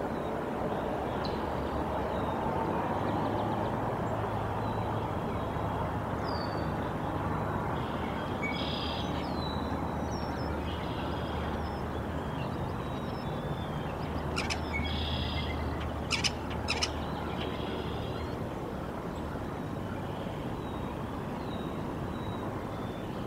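Small songbirds chirping repeatedly over a steady rushing background noise, with a low hum underneath. Three sharp clicks come a little over halfway through.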